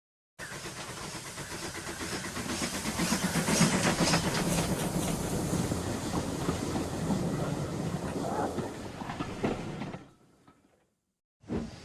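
A train running on the rails with a rhythmic clickety-clack, growing louder over the first few seconds and fading out about ten seconds in.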